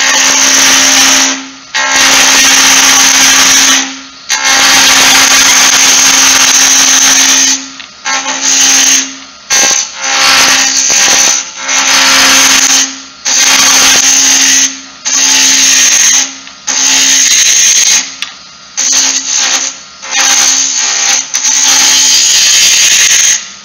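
Roughing gouge cutting a spinning wooden spindle on a lathe: a loud hiss of wood being peeled off in runs of one to four seconds, each broken by a short pause as the tool lifts off, about a dozen passes in all.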